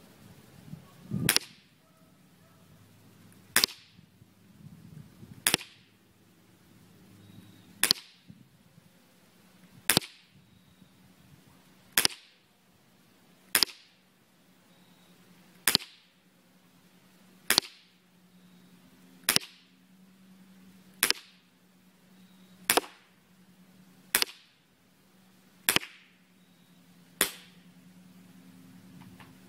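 Ruger P345 CO2 airsoft pistol firing single shots on a fresh CO2 cartridge, fifteen sharp cracks, about one every two seconds. The shots are fired from 15 to 20 feet from the target end where they are heard.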